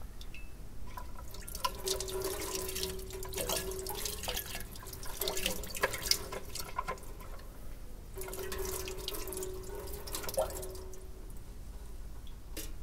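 An old bathroom tap running a thin stream onto a hand and into the sink, splashing and dripping in two spells with a short pause between. A steady whine sounds while the water runs.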